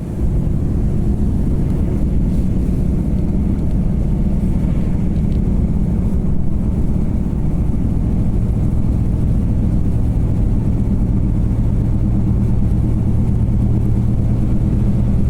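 Steady engine and road noise of a vehicle driving, with a low constant hum that grows a little stronger about halfway through.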